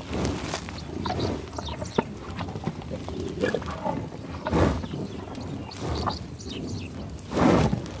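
American bison grunting at close range, a series of low, rough grunts; the loudest come about four and a half seconds in and again near the end.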